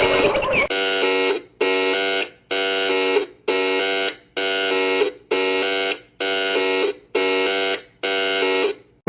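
Fan-made alternative Emergency Alert System alarm: a buzzy, chord-like electronic tone beeping on and off about once a second, nine times. A brief noisy jumble cuts off as the first beep starts.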